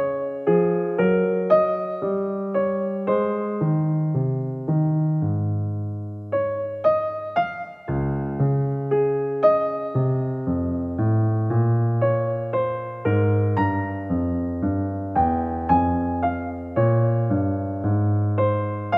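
Background music: a gentle piano piece, single melody notes struck one after another over held bass notes, with a brief break about eight seconds in.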